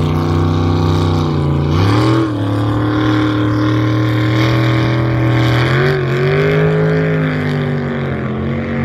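Racing jet boat's engine running loud at speed, one strong droning note that steps up in pitch about two seconds in, climbs again about six seconds in and falls back near the end.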